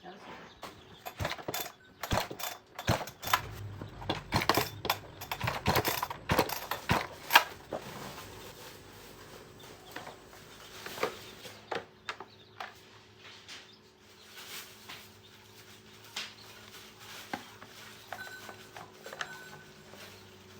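Metal tools and small metal parts clinking and knocking as the chainsaw is worked on. There is a quick, busy clatter in the first several seconds, then scattered clicks.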